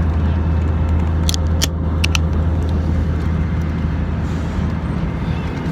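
Steady low drone of an airplane cabin's engine and air noise, with a few short sharp clicks in the first couple of seconds.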